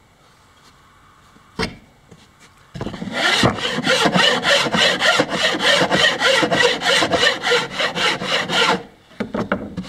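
Plywood edge being rounded off by hand with rapid back-and-forth rasping strokes, about four or five a second, for some six seconds, after a single sharp tap.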